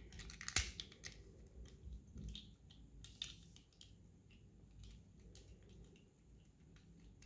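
Small plastic transforming toy car, a Silverlit Robocar Poli mini transformer, being handled and transformed, with faint scattered clicks of its plastic parts and brief rustles. The louder rustles come about half a second in and about three seconds in.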